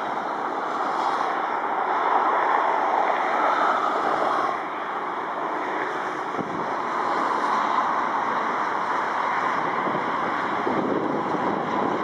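Steady jet roar from a Boeing 777F's engines as the freighter rolls out on the runway after touchdown, mixed with gusty wind on the microphone.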